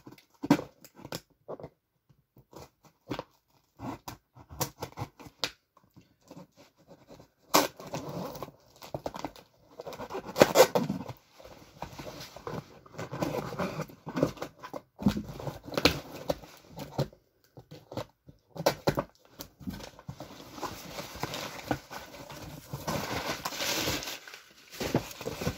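Cardboard box being unpacked by hand: scattered small clicks as the packing tape is worked at, a sharp rip about seven and a half seconds in, then the flaps pulled open and crumpled packing paper rustling as it is pulled out.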